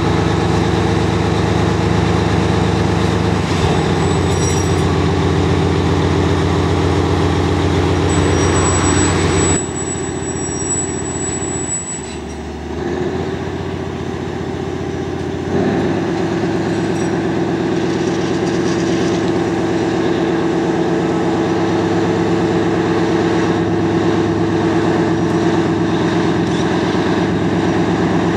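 Lxd2 narrow-gauge diesel locomotive's engine running hard under load as it struggles for grip on wet rails hauling a train of wagons. The engine note drops back about ten seconds in, then comes back strongly at full power about sixteen seconds in.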